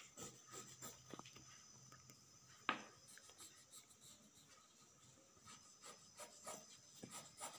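Faint scratching of a pencil drawing lines on cloth, with a sharp tap about three seconds in.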